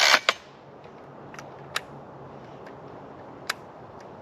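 A Husqvarna 440 chainsaw's recoil starter cord is pulled, the burst ending a moment in without the engine catching: a warm saw that will not start. A few sharp, separate clicks follow.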